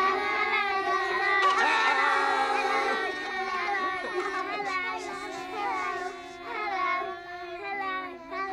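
Gentle music with held notes, with a sparkling shimmer about a second and a half in. High voices call and sing over it in the second half.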